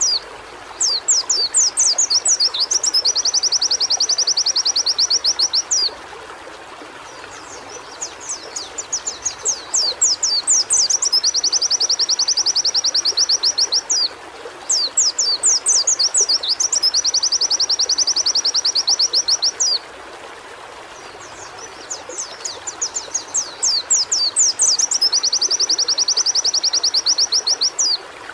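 White-eye (pleci) singing long runs of rapid, fast-repeated high notes. The runs last several seconds each and are broken by brief pauses, with a steady hiss underneath.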